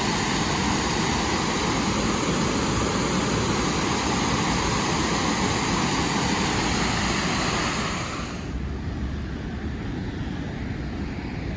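Water pouring over the Chagrin Falls waterfall: a steady, dense rush. About eight seconds in it becomes quieter and duller as the high hiss falls away.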